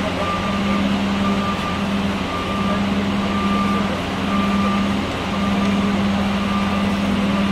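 Reversing alarm on construction machinery beeping about once a second, each beep about half a second long, over a steady low drone that drops out briefly every second or so.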